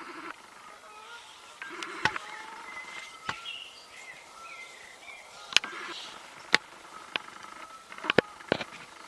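Faint bird calls, with a series of sharp clicks and pops scattered through, the loudest clustered around the middle and near the end.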